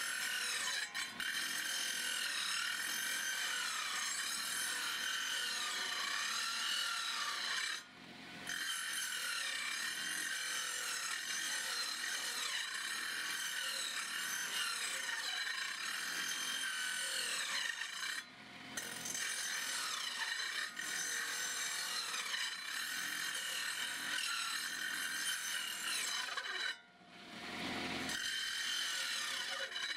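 A circular saw blade grinds slowly through a wooden beam with a rasping, rubbing noise and a wavering high-pitched whine. The cutting sound dips briefly three times.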